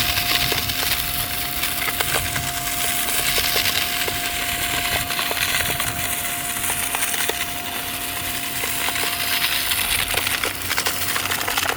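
Haimeec cordless stick vacuum running on sand: a steady motor whine under a hiss of rushing air, with grains of sand ticking and rattling as they are sucked through the plastic tube and bin.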